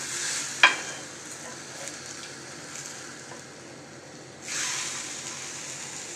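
Eggs frying in capsicum-ring moulds on a hot tawa, sizzling steadily, with the sizzle swelling again about four and a half seconds in. A single sharp metallic clink of a utensil against the pan comes about half a second in.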